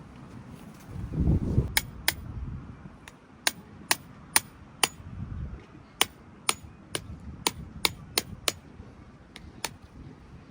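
A hammer striking metal tent pegs, about fifteen sharp, ringing blows in uneven runs as the pegs are driven in during tent pitching.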